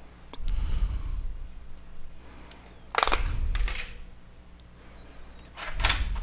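Clicks and scraping of a Samsung Galaxy S4's plastic body being handled, with two louder bursts of handling noise, one about halfway through and one near the end.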